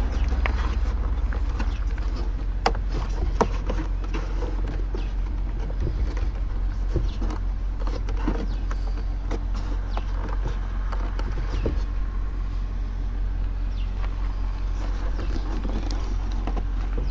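Steady low rumble, with scattered light clicks and taps from fingers handling the hatch cover and deck fittings of a wooden model ship.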